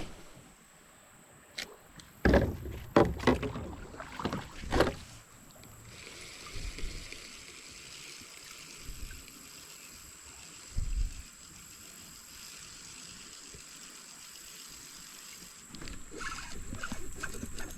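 Several loud knocks and thumps on a kayak hull about two to five seconds in, then a steady low hiss with one more thump near the middle.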